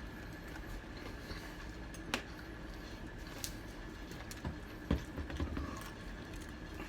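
Quiet eating and food-handling sounds: a few faint clicks and knocks, the clearest about two, three and a half and five seconds in, over a steady low hum.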